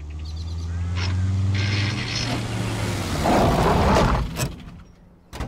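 Small old van's engine running as it drives up, louder for about two seconds, then the tyres crunch over gravel as it pulls up and stops. A single sharp knock comes near the end.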